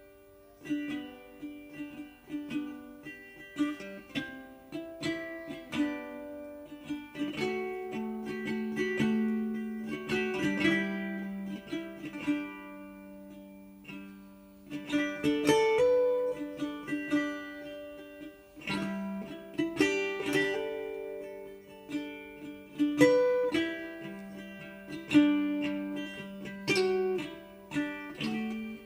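Background music played on a plucked string instrument, a light tune of short notes that ring and fade.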